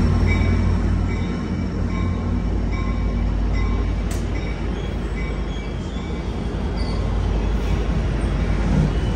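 Amtrak Capitol Corridor train's bilevel passenger cars rolling past close by with a steady low rumble, the F59PHI diesel locomotive's engine drone fading in the first second or two as it moves off. A bell rings about once a second over the first few seconds.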